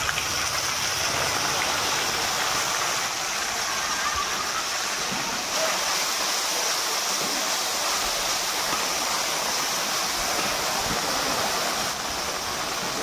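Onions, green chillies and freshly poured sauce sizzling steadily in hot oil in a wok.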